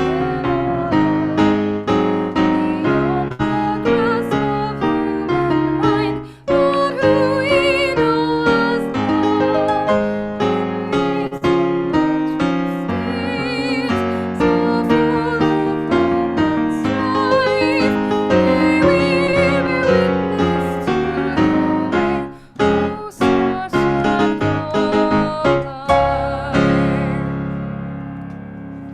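Piano music, with a wavering higher melody line over the chords; the last chord rings and fades away over the final few seconds.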